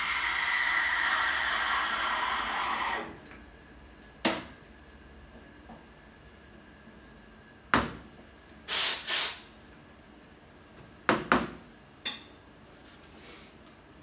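Steam wand of an Iberital L'Anna two-group espresso machine steaming milk in a jug: a loud steady hiss that cuts off about three seconds in. After it come a few sharp knocks and clinks from the jug and cup, and two short, sharp hisses near the middle as the wand is purged.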